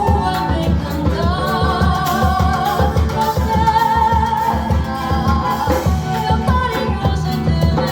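Samba played by a small group: a melody line from female voice or flute over guitar and percussion, with a steady, even beat.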